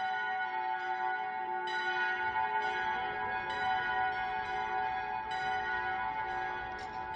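Bells ringing, struck again and again about once a second, each peal ringing on and overlapping the next.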